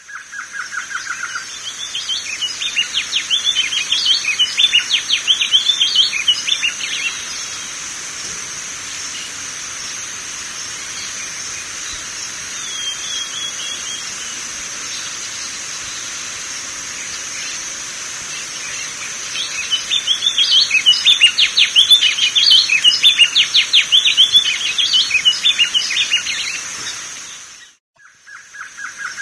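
Wing-barred seedeater (coleiro-do-norte, Sporophila americana) singing two long bouts of fast, twittering warbled notes, one at the start and another about two-thirds of the way through, with a short soft phrase between them. A steady high-pitched hum runs underneath, and the sound cuts off sharply shortly before the end.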